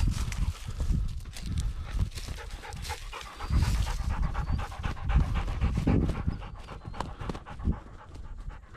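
Bird dog panting rapidly in loud, irregular breaths, from the exertion of retrieving a shot dove.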